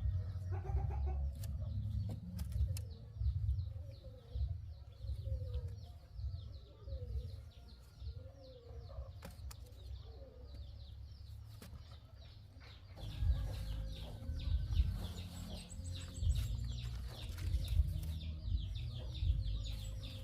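Chickens clucking and small birds chirping in many quick, high, falling notes over a low rumble.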